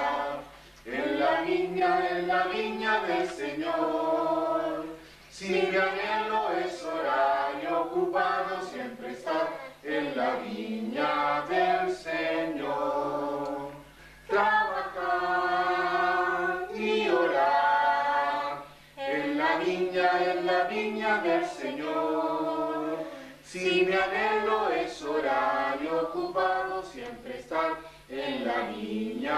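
A small group of men, women and children singing a hymn together from hymnbooks, unaccompanied, in phrases of about four to five seconds with brief breaks between them.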